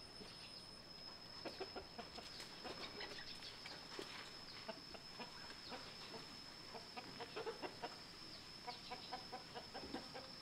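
Faint animal calls, short and repeated, with scattered light clicks over a steady high-pitched whine.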